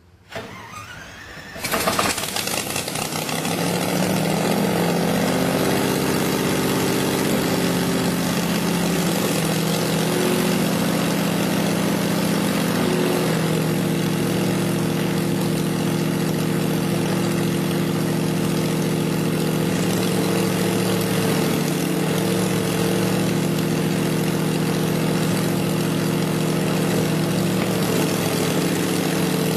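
Small propeller aircraft's piston engine being started: a brief crank, then it catches about two seconds in and runs up loud, settling into a steady idle with a few small shifts in engine speed.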